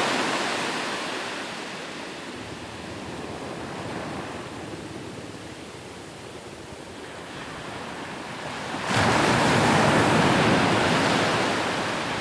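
Ocean waves on a beach: the wash of one wave fades into a quieter rush of water, then about nine seconds in the next wave breaks suddenly and loudly and its wash slowly dies away.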